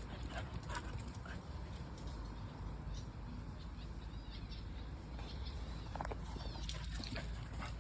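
German Shepherd whining and whimpering faintly in short high calls, a few near the start and a cluster near the end, over a steady low rumble.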